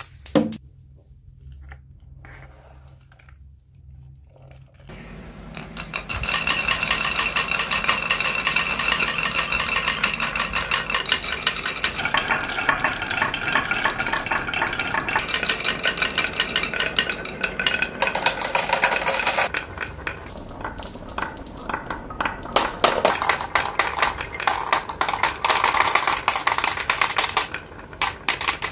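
Glass marbles rolling down a wooden wave-shaped slope track and spilling into a plastic toy dump truck's bed: a dense, rapid clatter of marbles clicking against each other and the wood. It is faint for about the first five seconds, then busy, with a short lull a few seconds before the end.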